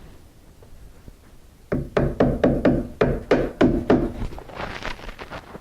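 Hammer driving roofing nails through felt paper into the wall sheathing: a quick run of about ten sharp, ringing blows starting about a second and a half in, followed by a brief softer rustle.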